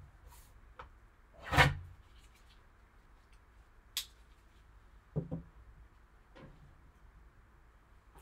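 Handling noises from a sealed cardboard trading-card box moved about by gloved hands on a table: a short rub or slide about a second and a half in, a sharp click about four seconds in, then a few soft knocks, with quiet between them.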